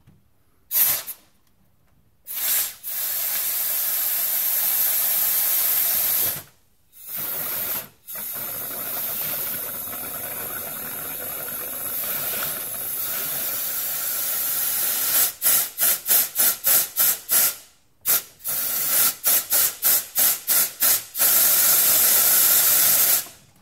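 Compressed-air blowgun hissing as it pressurizes a car's coolant reservoir to force the old coolant out through a hose into a drain pan. It comes as long blasts, then two runs of rapid short pulses in the second half, and ends with one more long blast.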